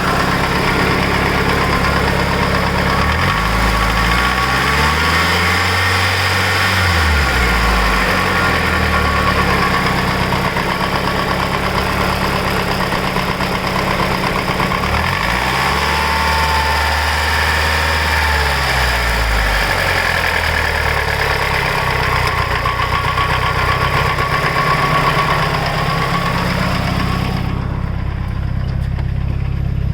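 Mitsubishi Lancer Evolution VIII's 4G63 turbocharged inline-four running with a lifter tick that persists after a full head rebuild with new zero-tick lifters. The engine is revved up and back down twice, each time for a few seconds.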